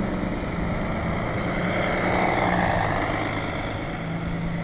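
Snowplow truck passing while pushing snow along the street: a steady engine hum under a broad rush that swells about two seconds in and then eases.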